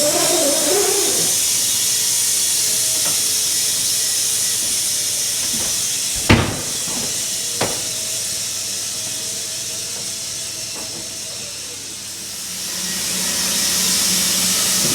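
Steady hissing machine noise of a band sawmill at work, with one sharp knock about six seconds in and a smaller one a second later.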